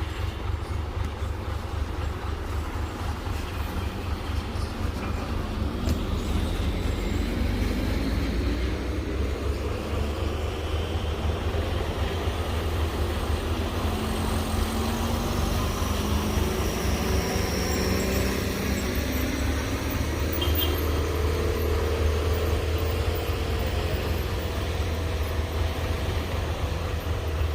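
Heavy diesel truck engine labouring under load on a steep climb, a deep steady rumble with an engine note that rises gradually in pitch through the middle.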